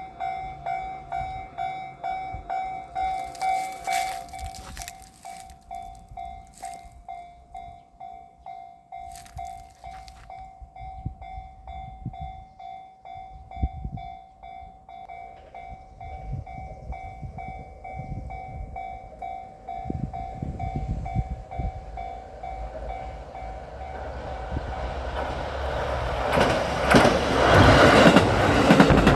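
Railway level-crossing warning bell ringing in a steady repeating ding. A train then approaches and passes over the crossing, its running noise building up and at its loudest near the end.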